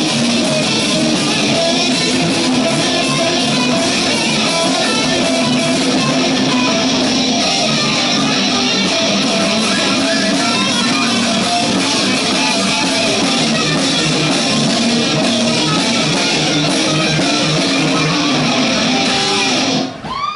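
A heavy metal band plays live on electric guitars, bass and drums, loud and dense, and the song cuts off about twenty seconds in.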